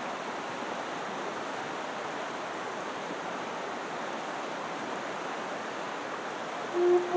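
Rushing river water running over shallow rapids, a steady even rush. Near the end, an Eastern Red Cedar Native American-style flute in A minor comes in with a single held low note.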